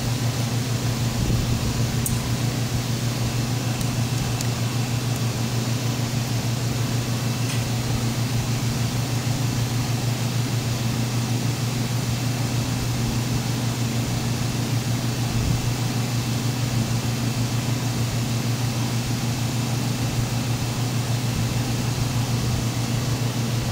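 Steady whir of cooling fans with a constant low hum, from an amplifier test bench while an amp is run on a dyno load toward clipping.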